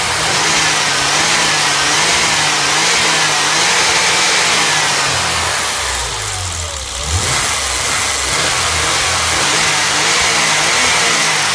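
BMW M20B20 2.0-litre straight-six running fully warmed up, heard close to its air intake at the air-flow meter, with a strong steady hiss of intake air and a pitch that wavers slightly up and down.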